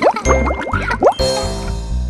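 Bright children's cartoon background music with a steady bass. Through the first second or so a quick run of short upward-swooping cartoon sound effects plays over it.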